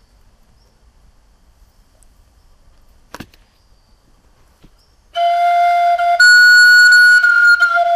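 Unfinished friscalettu, a Sicilian cane duct flute with no finger holes yet, blown for the first time from about five seconds in: one steady note that jumps up an octave for about a second and drops back. The tone is breathy and thin, still 'dirty' and 'poor in harmonics' before its voicing is filed; a single click of handling comes earlier.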